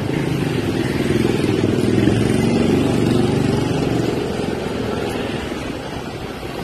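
Motorcycle engine running steadily while riding, heard from on the bike. Its note swells a little about two seconds in and eases off toward the end.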